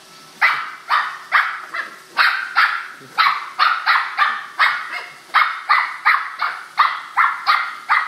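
Corgi barking rapidly and without let-up at a running Roomba robot vacuum, about two to three sharp barks a second. The vacuum's steady hum sits faintly underneath.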